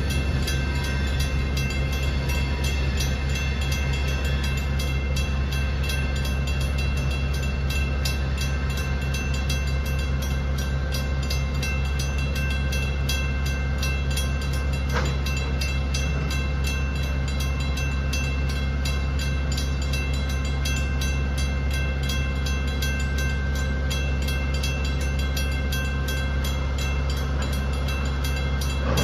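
Grade-crossing bell ringing with rapid, even strokes, over the steady low rumble of a diesel locomotive at the crossing.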